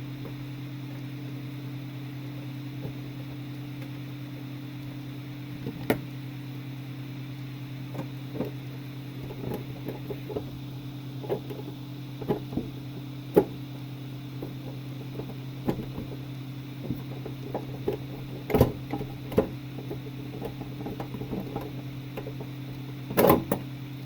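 Steady low hum of a range hood fan running. From about six seconds in, irregular clicks and knocks come as the hood's cover is handled and fastened back on, with the sharpest knocks near the end.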